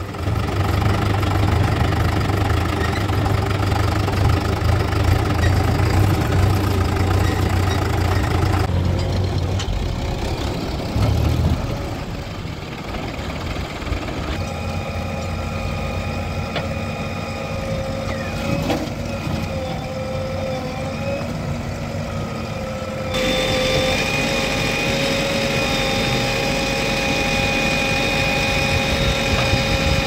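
JCB 3DX backhoe loader's diesel engine running as it digs and loads, with a strong low rumble in the first part and a steady high whine later on. The engine sound shifts abruptly several times.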